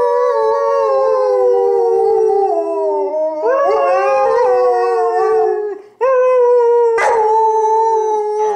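A husky howling in three long, drawn-out howls, each sliding slowly down in pitch, with brief breaks between them.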